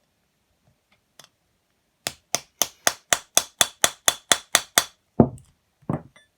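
Hammer tapping a drift against a steel bar in a two-stroke motorcycle cylinder: about a dozen quick metallic strikes, roughly four a second, then two heavier knocks.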